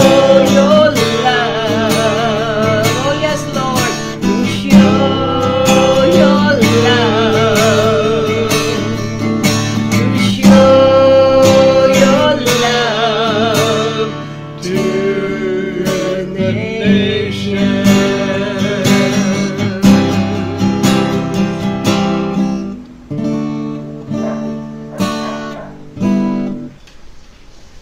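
Acoustic guitar strummed, with a woman singing along with vibrato through roughly the first half; the guitar then carries on alone and winds down, growing quieter near the end.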